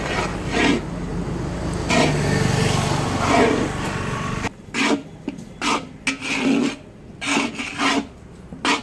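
A metal stirring rod scraping through a stiff flour mixture against the inside of a large metal wok (kadai), in repeated rasping strokes, about two a second. A steady low rumble underlies the first half and drops away about halfway through.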